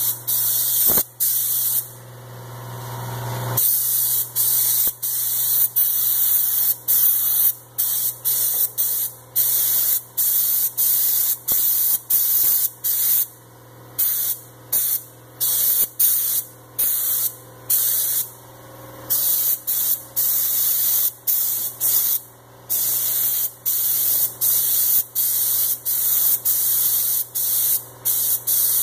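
Siphon-feed air spray gun hissing as it sprays paint, in repeated bursts of about a second, cut by short gaps as the trigger is pulled and released.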